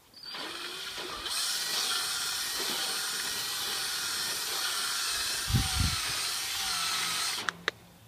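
18-volt cordless drill running with its bit twirled around inside a hole in PVC pipe, reaming the hole wider. The motor starts, picks up about a second in, runs steadily, and stops near the end.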